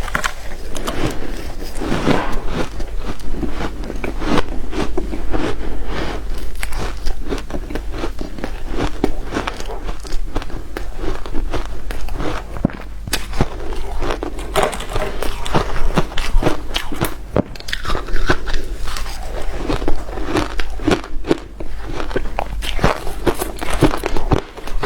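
Close-up biting and chewing of hard shaved ice: a continuous run of crisp crunches and cracks, one after another.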